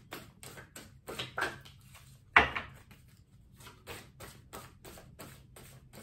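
A tarot deck being shuffled by hand: a run of soft card clicks, about three a second, with one louder snap about two and a half seconds in.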